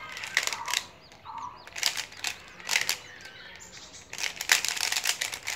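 Square-1 puzzle being turned fast by hand: quick plastic clicks and clacks of its layers turning and its middle slice flipping, in irregular bursts that run together densely from about four seconds in.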